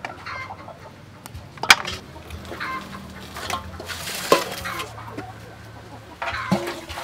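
Chickens clucking, with a few sharp clinks of metal bowls and a plate being handled, the loudest about a second and a half in and another past the middle.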